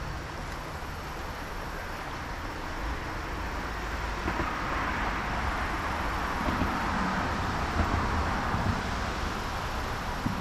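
Steady rush of flowing creek water, with a low wind rumble on the microphone; the rush swells in the middle, and there are a couple of short knocks near the end.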